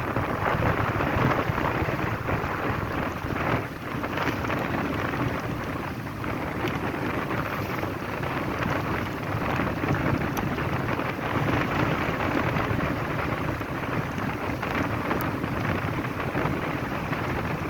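Strong wind buffeting the microphone over a rough sea, with water washing and splashing: a steady rushing noise without a break.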